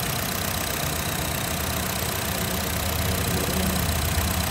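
Honda Mobilio's 1.5-litre four-cylinder petrol engine idling steadily, heard close up in the engine bay.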